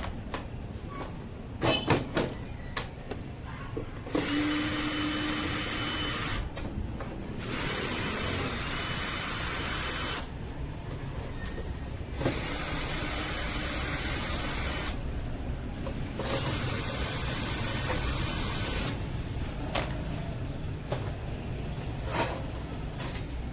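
Repeated bursts of hiss, each lasting two to three seconds with quieter gaps between, and a few sharp clicks near the start.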